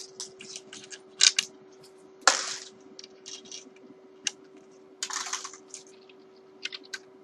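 Small metallic clicks, clinks and short scraping rustles of hand work on an electric guitar as snipped steel strings are pulled out, with a sharp click about a second in and a louder scrape a second later. A faint steady hum sits underneath.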